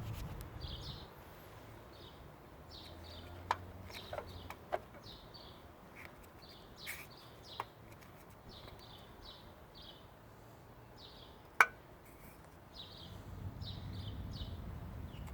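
Small birds chirping in short, irregular calls over a low hum, with a few sharp clicks, the loudest about twelve seconds in.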